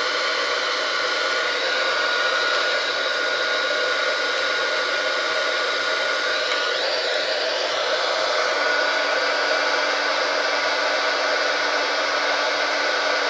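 Hot-air tool blowing steadily, a loud even rushing hiss with a faint whine, warming the area around a tablet's charging port to loosen it for removal.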